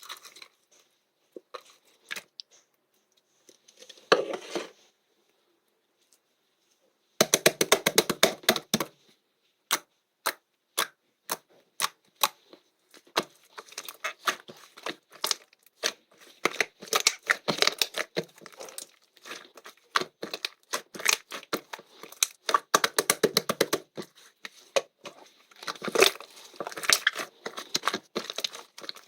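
Squishy slime being pressed and worked by hand, crackling with quick runs of small air-bubble pops.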